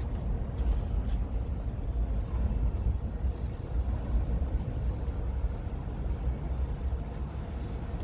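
A Docklands Light Railway train running across an elevated bridge, heard as a steady low rumble.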